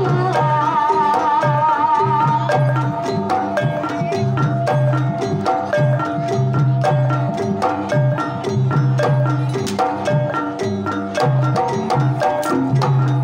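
Javanese gamelan ensemble playing a Banyumasan tayub piece: kendang hand drum strokes over ringing saron metallophones and gongs in a steady rhythm. A wavering held melody line fades out about two seconds in.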